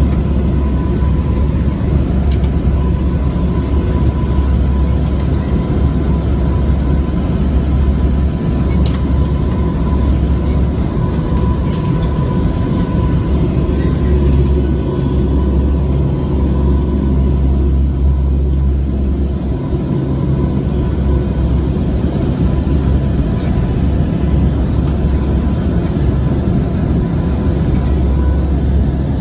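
Turboprop aircraft in flight, heard from inside the cabin: a steady deep rumble of engine and airflow with a thin, steady high whine over it.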